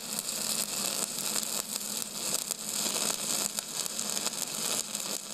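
A steady crackling hiss, strongest in the high range, with a faint low hum under it.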